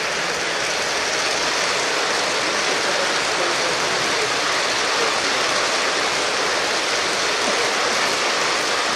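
G-scale model train of tank cars rolling past, its wheels on the track making a steady rushing noise.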